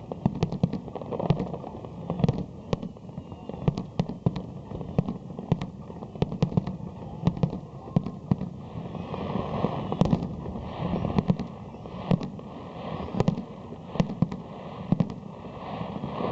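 Aerial fireworks shells bursting in a rapid finale barrage, several sharp bangs a second.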